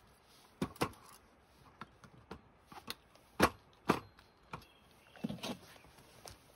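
A series of irregular sharp knocks and clicks, about nine in all, the loudest two coming about three and a half and four seconds in.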